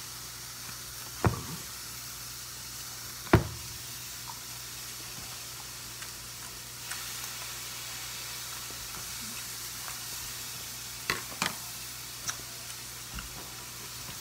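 Pork cutlets sizzling steadily in a frying pan. Two sharp knocks come about one and three seconds in, and a few lighter clicks near the end.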